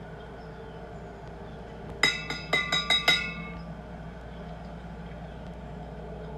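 A quick run of about six sharp metallic clicks with a brief ring, about two seconds in, over a steady low hum: the trigger of a can-type air horn being pressed with no horn blast, because the can holds no air.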